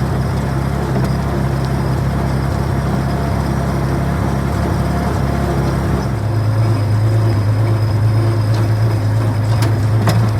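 Clarktor tow tractor's engine running steadily as it drives. About six seconds in, its note drops lower and gets a little louder.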